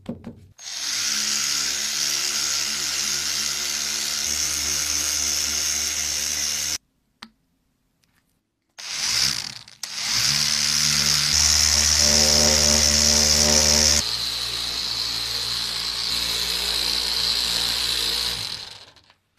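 Small angle polisher with a foam pad running as it buffs polishing compound on an axe head. It runs steadily with a hissing whir for about six seconds, stops, then starts again about two seconds later. In the second run the sound drops a little in level and tone about fourteen seconds in.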